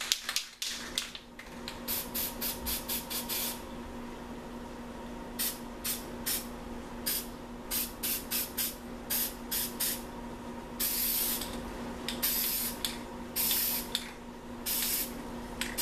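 Aerosol spray paint can spraying in a string of quick short hissing puffs, then a few longer sprays of about half a second each in the last few seconds.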